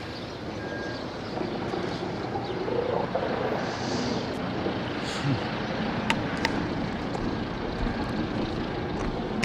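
Steady vehicle engine noise, growing slightly louder after the first second or so, with a few faint clicks.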